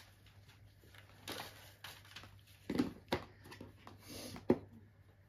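Quiet handling noise: scattered soft knocks and rustles, with a few short clicks and one sharp click about four and a half seconds in.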